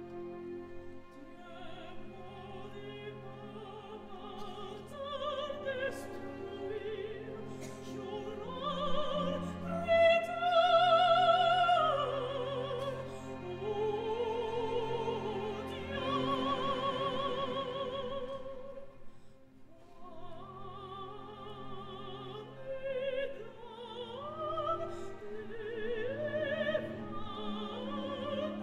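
Soprano singing long held notes with a wide vibrato over sustained orchestra. The voice swells to its loudest high notes about ten seconds in and again around sixteen seconds, then drops back briefly before the music builds again.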